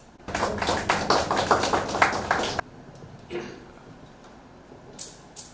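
Audience applause, many quick claps, that cuts off suddenly about two and a half seconds in; a couple of sharp knocks follow near the end.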